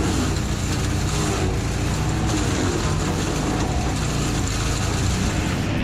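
Engine-driven wood chipper running steadily: a constant engine hum with a dense rushing noise over it.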